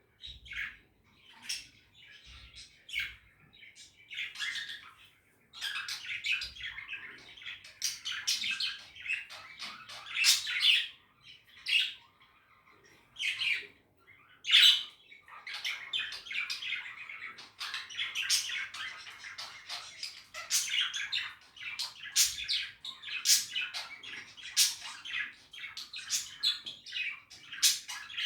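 Budgerigars chattering, with rapid warbling chirps and sharp squawks. The calls are sparse for the first few seconds, then become a near-continuous flock chatter with several loud single squawks.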